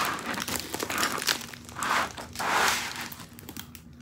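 Clear plastic film crinkling and rustling as hands press and smooth it over a diamond painting canvas, in a few bursts: one at the start and two close together about two seconds in.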